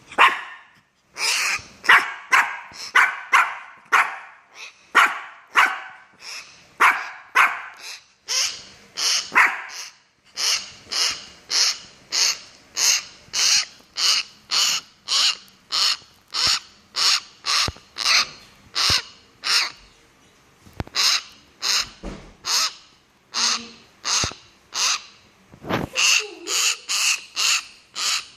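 Myna bird calling over and over, about two short calls a second, with a brief pause about two-thirds of the way through: the calls of a bird agitated by a dog pestering it.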